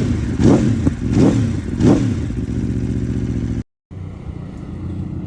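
Four-cylinder sportbike engine blipped to high revs about three times in quick succession, then held at a steady lower speed. It is being revved for a static trackside noise test on a loud aftermarket exhaust, which read 115 dB and failed. A brief cut a little past halfway gives way to a steadier, lower engine sound.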